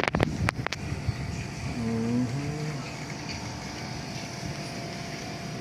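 Split air conditioner unit running during an R410A refrigerant charge: a steady mechanical hum with a faint constant tone. A few sharp clicks come in the first second, and a short pitched sound about two seconds in.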